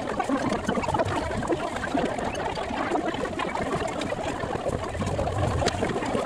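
Busy market stall ambience: a steady hubbub of background voices and clatter, with a single sharp click near the end.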